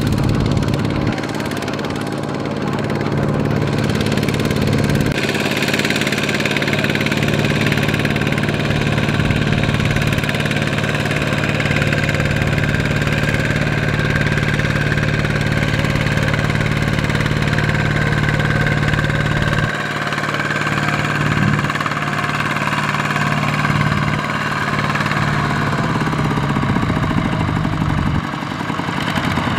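Single-cylinder diesel engine of a two-wheel walking tractor running steadily under load as it pulls a loaded trailer over soft paddy ground. Its tone shifts about five seconds in and again about twenty seconds in.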